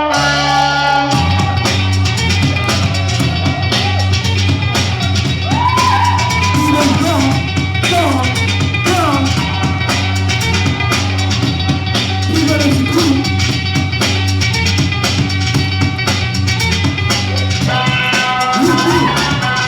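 Loud music with drums and a steady bass line; a low bass note comes in about a second in and holds under the beat.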